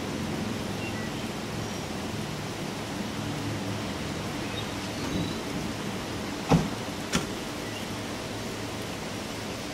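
Steady rain falling with a low hum under it, and two sharp thumps a little over halfway through, about half a second apart, the first louder: a Ford Explorer Sport Trac pickup's door being shut.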